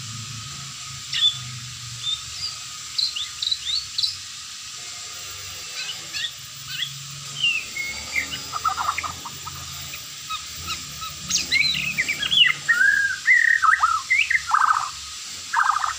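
White-rumped shama (murai batu) singing: scattered short, high chirps and whistles at first, building from about eight seconds in into a run of fuller, rapid, varied phrases.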